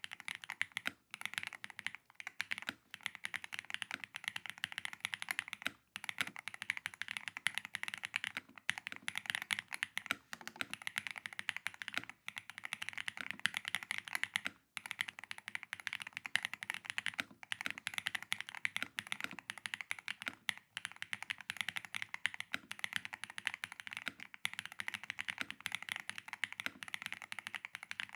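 Continuous fast typing on a custom 60% mechanical keyboard with UR Studio ICE Ultra switches and DROP DCX doubleshot ABS keycaps in a KBDfans Holy60 case, a dense run of keystroke clacks with a few short pauses.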